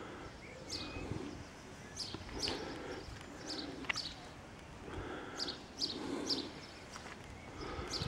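Garden birds chirping: short, high chirps that drop in pitch, repeated at irregular intervals.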